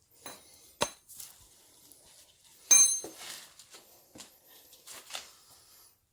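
Metal tools or parts being handled and set down, giving a series of sharp clinks and knocks. The loudest, nearly three seconds in, is a metal strike that rings briefly.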